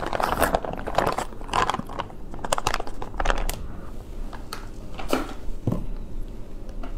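A plastic bag crinkling and rustling as chicken feet in sauce are squeezed out of it into a bowl, with dense clicks and crackles that thin out after about three seconds.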